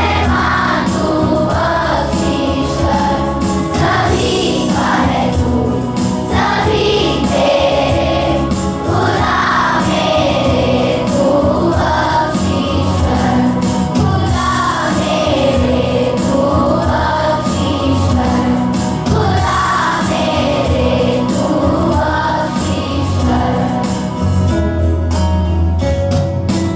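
A group singing a song together over musical accompaniment, with a steady low bass.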